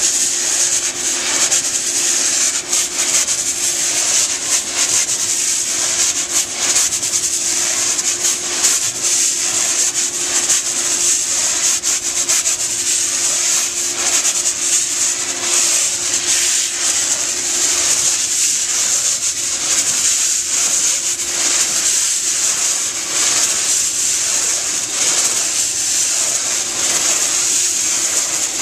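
Compressed air blasting from a wand nozzle into a wool rug's pile: a loud, steady hiss that swells and dips as the wand is swept back and forth, knocking out embedded dry soil before the rug is washed.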